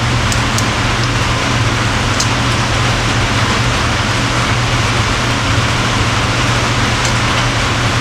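Steady hum with a constant hiss, as from a running fan or machine, with a few faint small clicks.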